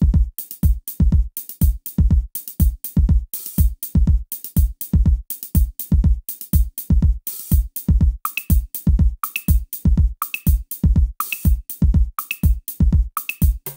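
Background music: an electronic drum-machine beat with a steady kick drum and hi-hat ticks. About eight seconds in, a short high accent joins, about once a second.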